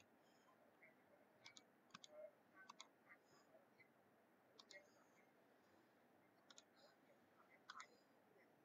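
Near silence, broken by about a dozen faint, scattered clicks, some in quick pairs.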